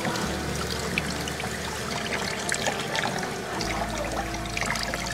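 Water running and splashing as hair is rinsed at a salon wash basin, with background music underneath.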